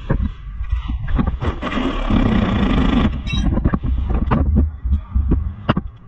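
Hand tools knocking and clanking on a car's suspension underneath the vehicle, with a dense hissing burst lasting about a second and a half near the middle.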